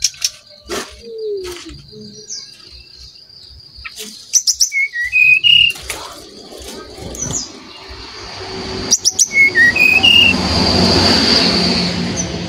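Brown-chested jungle flycatcher song: a short phrase of whistled notes stepping upward, heard twice, about 5 s and 9.5 s in. Sharp clicks come just before each phrase, a steady high thin tone runs underneath, and a rush of noise swells near the end.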